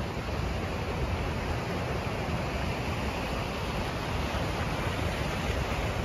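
Ocean surf washing over black lava rocks along the shore: a steady rush of water with a low rumble underneath.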